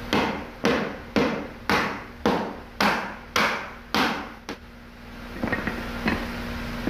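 Wooden mallet striking a wooden bed-end panel, about nine evenly spaced blows roughly two a second, driving the panel's joint home into the mortised rail. After the blows stop, a few lighter clacks of small wooden blocks on the tile floor.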